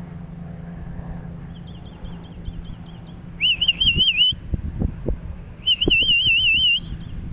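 A songbird singing: a run of soft repeated high notes, then two loud, rapidly warbling whistled phrases about a second long each. Low thumps sound between them.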